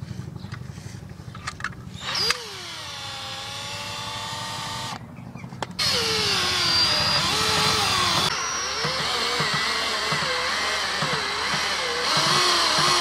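Skil 12-volt cordless drill driving a scissor jack's screw through a socket to lift the car. Its motor whine starts about two seconds in, falls in pitch and then holds steady. It stops briefly about five seconds in, then runs again louder with its pitch wavering under the load. Before the drill starts there is a low hum with a few clicks.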